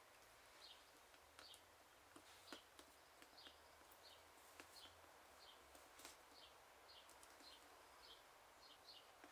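Near silence: a faint bird outside chirping a short, repeated call about every two-thirds of a second, with a few soft clicks of the book and its brass clasp being handled.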